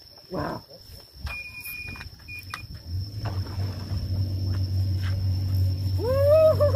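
Electronic carp bite alarm sounding as a fish takes the bait: one long high beep, then a short one. A steady low hum of line running off the reel follows and grows louder, and a loud wavering, rising cry comes in near the end as the rod is lifted.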